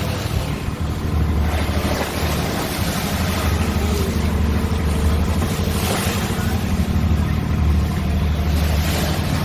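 Tour boat's engine running with a steady low rumble, with wind on the microphone and water wash over it.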